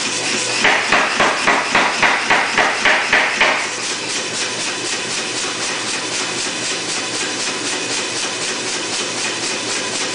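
Say-Mak SPH 50 self-contained power hammer with flat dies striking a hot steel bar in rapid, even blows, about three a second, as the bar is drawn out. The blows stop about three and a half seconds in, and the hammer runs on idle with a lighter, faster steady beat and a low hum.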